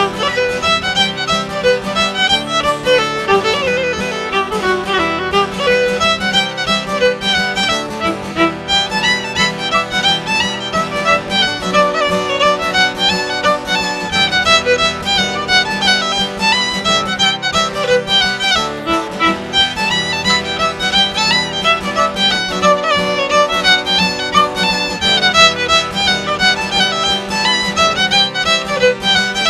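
Fiddle playing an Irish traditional dance tune in an unbroken run of quick bowed notes over a steady low tone.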